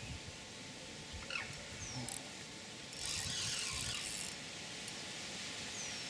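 Spinning reel on a feeder rod while a big carp is played: a light ratcheting from the reel, with a louder buzz of the drag giving line for about a second, from about three seconds in, as the fish pulls.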